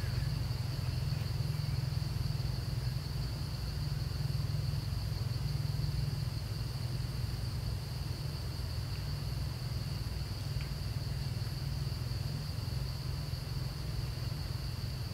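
Steady high-pitched drone of insects, unbroken throughout, over a constant low rumble.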